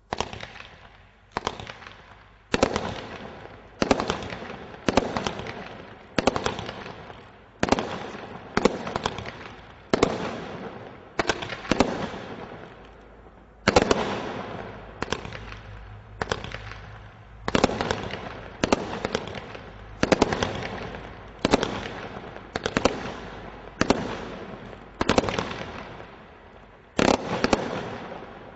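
Fire One 'Metal Cage Barrage' Category 3 combination Roman candle firing a steady series of shots, about one every second, roughly two dozen in all. Each sharp report trails off in a fading crackle of bursting stars.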